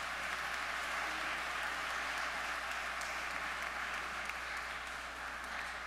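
Congregation applauding, a steady, even clapping that eases off slightly near the end.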